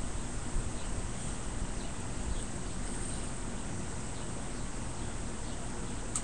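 Steady outdoor background hiss with faint, scattered high chirps through it, and a single sharp click near the end.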